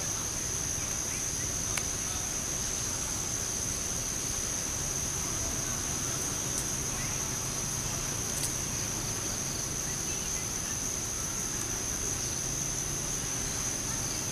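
Insects in the trees droning steadily: one continuous high-pitched tone with a fainter, higher one above it, and a few faint clicks.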